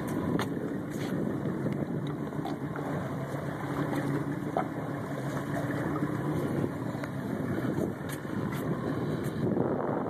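Boat engine running steadily under a wash of wind and water noise, with a few faint clicks.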